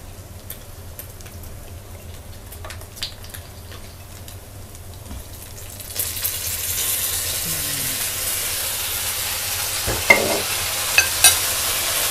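Pork belly and garlic frying in a wok, with a light sizzle and scattered scrapes of a metal spatula. About six seconds in, oyster sauce is spooned into the hot wok and the sizzle suddenly gets much louder. Near the end come a few sharp clinks of the spatula against the wok.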